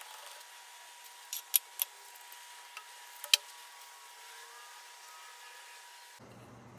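A few sharp metallic clicks as a tap is turned by hand into a metal shaft held in a locked lathe chuck, working the tap forward and back. A faint steady whine runs underneath.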